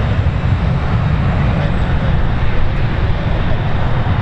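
Wind buffeting the microphone: a loud, steady low rumble that flutters rapidly, with a fainter even hiss above it.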